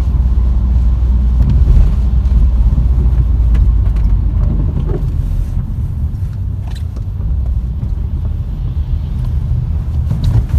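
Inside a moving Nissan X-Trail: a steady low rumble of engine and road noise, with a few faint ticks about halfway through.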